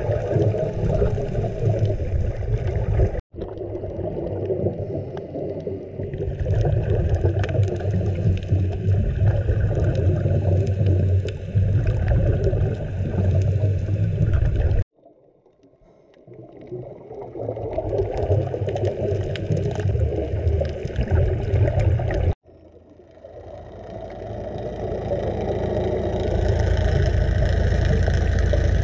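Underwater rumble with the gurgling of scuba divers' exhaled bubbles, mostly deep in pitch. It cuts out abruptly three times, once to near silence, and swells back each time.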